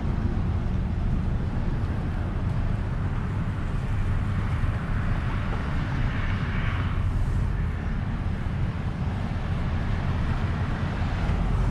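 Steady low vehicle rumble of engine and road noise, with a swell of higher hiss about halfway through.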